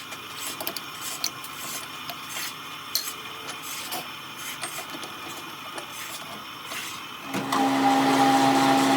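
Scattered light metal clicks and taps, then about seven seconds in an electric shop machine starts up and runs loudly with a steady hum.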